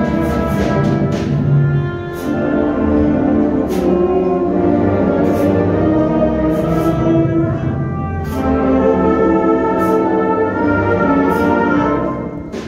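School concert band playing: brass and woodwinds holding full chords over a low tuba line, with short light percussion strokes about every second. The full band sound drops away about twelve seconds in.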